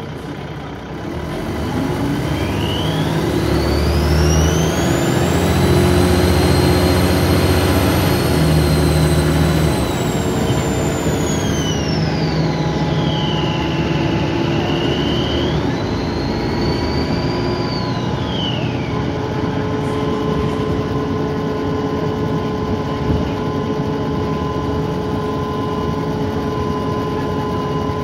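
Dennis Trident 2 double-decker bus heard from onboard, its diesel engine droning under a loud turbo whine. The whine climbs steeply in pitch as the bus pulls away, holds high, drops away near the middle, then rises and falls once more briefly.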